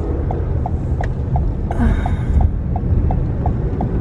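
Inside a car cabin: steady low engine and road rumble, with the turn-signal indicator ticking evenly about three to four times a second. A brief hiss comes near the middle.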